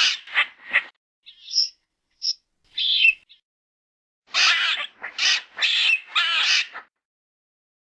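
Squirrel calls: a quick run of short harsh calls at the start, a few brief high chirps, then four longer harsh calls in a row in the second half, with dead silence between them.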